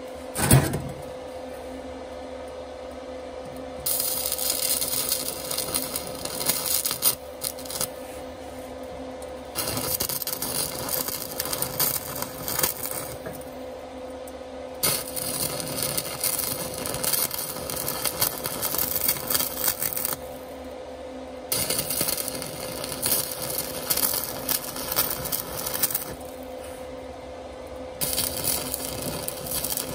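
Sefaspe 110-volt, 120-amp IGBT inverter stick welder arc crackling in runs of several seconds with short breaks between them, over a steady hum. A sharp knock sounds about half a second in.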